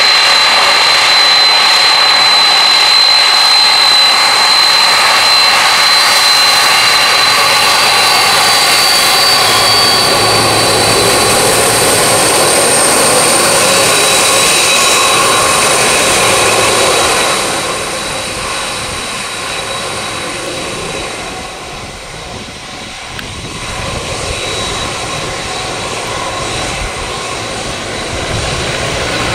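Twin jet engines of a Boeing 767-200 running at taxi power as the airliner rolls past: a steady high whine over a hiss. The sound drops a little past halfway as the jet turns away, dips briefly, then swells slightly again near the end.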